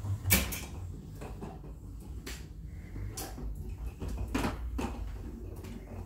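Scattered hard plastic clacks and knocks, about half a dozen, the loudest just after the start: electronic cat toys knocking and bumping about on a hardwood floor.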